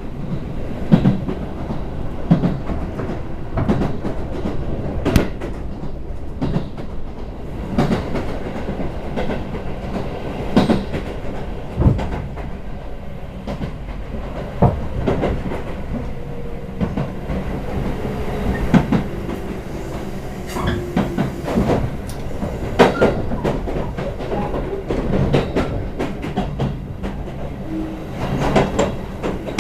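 Chichibu Railway electric train running along the line, heard from inside the passenger car: a steady rumble of wheels on track with irregular clicks and knocks over rail joints. A faint, slowly falling whine comes in around the middle.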